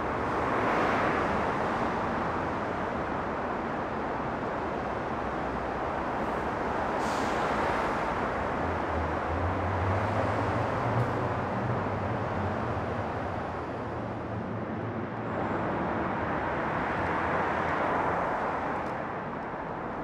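City traffic noise under an underpass, swelling and fading as vehicles pass, with a low engine drone from about nine to fifteen seconds in.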